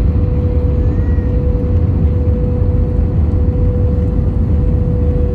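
Steady cabin noise of an airliner descending on approach with its flaps extended: a deep, even rumble with a constant hum held at one pitch above it.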